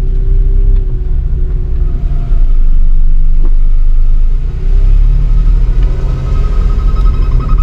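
Loud, steady low rumble of a motor vehicle's engine and road noise, swelling and easing a little.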